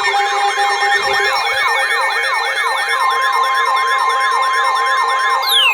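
Electronic yelp-style siren, its pitch sweeping up and snapping back about three times a second over steady held tones. Near the end a separate falling tone slides down from high to low.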